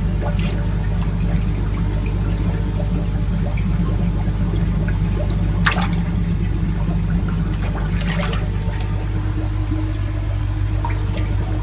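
Water running and sloshing in a tank of live fish over a steady low hum, with two louder splashes about six and eight seconds in.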